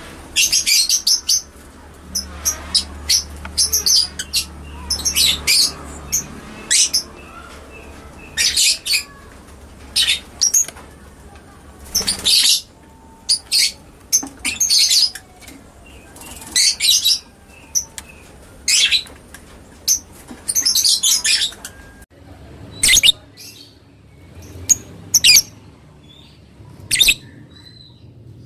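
Lovebird calling: a run of shrill, high chattering bursts, each up to about a second long, coming at irregular intervals.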